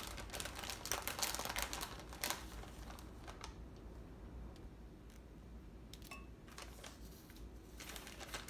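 Light crinkling of aluminum foil and small clicks of a metal measuring cup as shredded cheese is put onto calzone dough. The handling is busiest in the first few seconds, goes quieter in the middle, and picks up again with a few clicks near the end.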